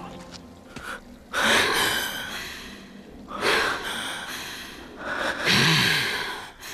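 A lioness character's vocal snarls: three harsh, breathy snarls about a second long each, the last with a growl in it.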